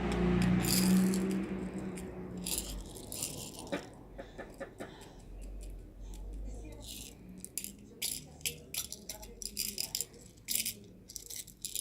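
Slime being handled and squeezed by hand. A low, muffled sound for the first couple of seconds gives way to a run of irregular sharp clicks and crackles.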